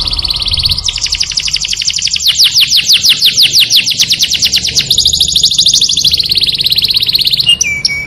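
Canary singing a long song of rapid trills, each a fast run of repeated high notes, switching to a new trill every second or two, with a held whistled note near the end.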